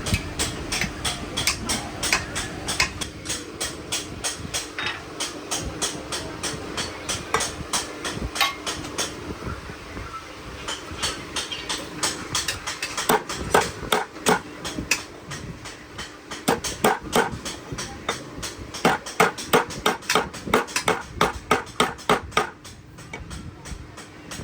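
Hammer striking metal again and again, a few blows a second in runs, hardest in the second half, over a steady machine hum.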